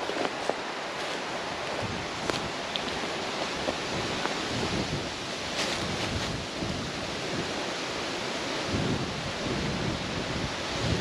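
Wind rushing through trees and buffeting the microphone in uneven gusts, with a few light clicks.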